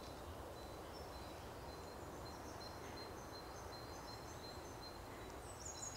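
Quiet woodland ambience: a steady low hiss with faint, distant birds calling in thin high notes, a little louder near the end.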